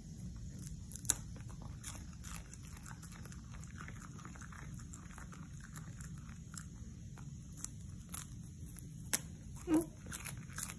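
A cocker spaniel chewing raw napa cabbage: scattered crisp crunches and clicks of the leaf breaking between its teeth, sharpest about a second in and near the end, over a steady low hum.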